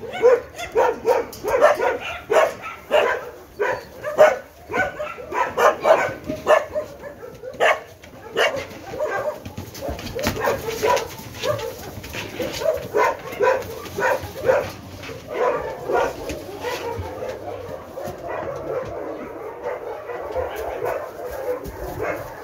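Many dogs barking in a shelter, short overlapping barks coming thick and fast for the first half, then thinning out to scattered calls.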